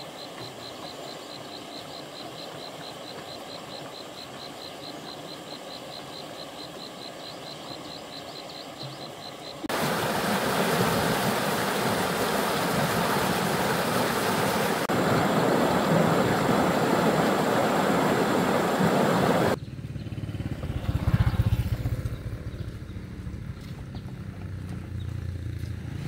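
Whitewater rushing over rocks, a loud, even rush lasting about ten seconds. Before it, a quieter steady flow of a river with an even ticking over it; after it, a low rumble from the engine of a passing vehicle that swells twice.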